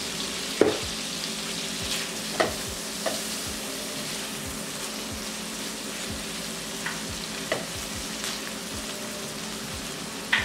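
Shrimp sizzling steadily as they fry in butter in a wok, with a slotted spatula stirring them and knocking against the pan about five times.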